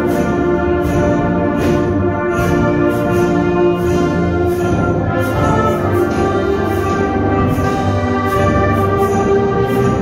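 High school concert band playing a holiday arrangement: brass holding sustained chords over a steady percussion beat.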